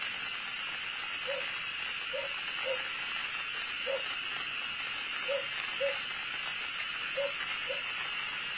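Short animal calls repeated mostly in pairs half a second apart, each pair about a second and a half after the last, over a steady high hiss.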